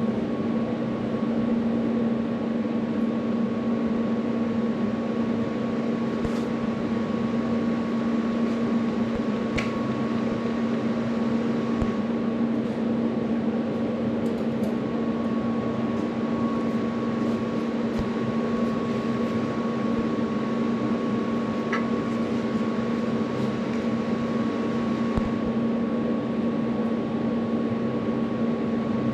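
Steady machine hum with a fan-like rush and a constant low drone, plus a fainter steady higher tone, unchanging throughout; a couple of faint ticks.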